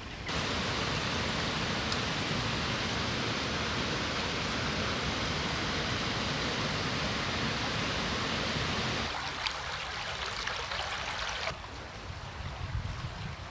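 Steady rush of a small brook's flowing water. About nine seconds in the low part of the rush abruptly drops away, and a couple of seconds later the water gets abruptly quieter.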